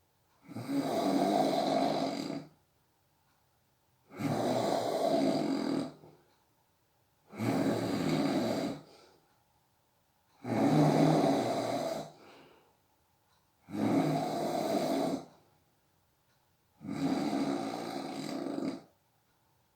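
A sleeping person snoring steadily: six long snores, each lasting one to two seconds, about one every three seconds, with silence between breaths.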